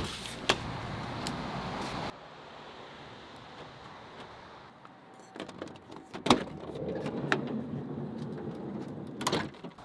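Door and van handling sounds: latch and key clicks, then heavy knocks of a van door opening and shutting, one about six seconds in and another near the end.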